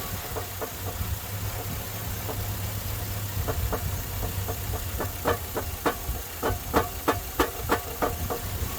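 Chevy 5.3 V8 idling with a sharp knock about three times a second, growing louder over the second half. The owner puts it down to a broken crankshaft, a broken flywheel or loose torque converter bolts, and leans toward loose torque converter bolts.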